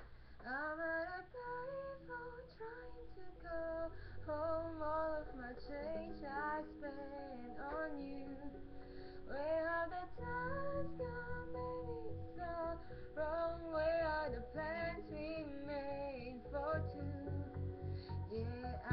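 A female voice singing a pop melody over a backing track, the notes sliding between pitches; a steady low beat comes in about ten seconds in.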